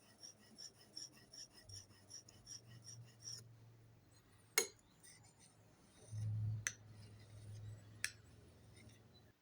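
Hand-forged steel blade scraping in quick, even strokes, about three a second, stopping about three seconds in. A few sharp clicks follow, spaced a second or more apart.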